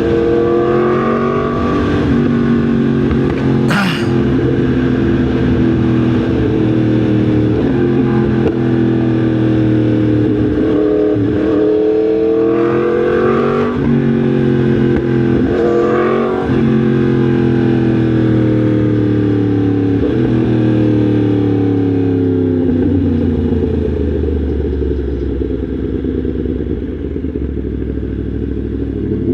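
Yamaha MT-10 SP's crossplane inline-four engine under way: it pulls up through the gears several times, its pitch climbing and dropping at each shift, then falls steadily near the end as the bike slows.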